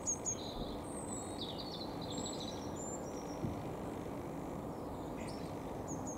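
Small birds chirping, with short high notes and a quick twittering run about two seconds in, over a steady background noise. The airliner itself is not heard.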